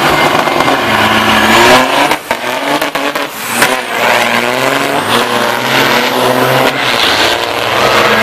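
Heavy diesel semi trucks pulling loaded lumber trailers accelerating hard off the start line in a drag race, the engine note climbing and dropping back several times as they shift up through the gears.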